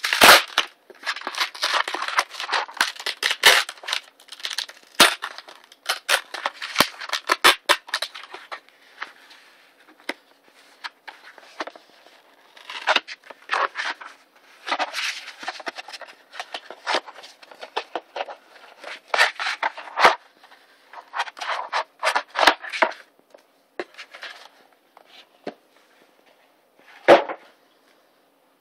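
Brown cardboard mailer being torn open by hand: irregular bursts of ripping, crinkling paper and cardboard with sharp crackles and clicks, coming in clusters with short pauses. A single sharp knock near the end.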